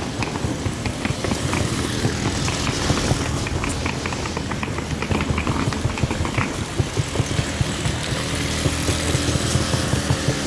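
Wheels of a rolling suitcase rattling and rumbling over pavement as it is pulled along, with quick ticks from the wheels.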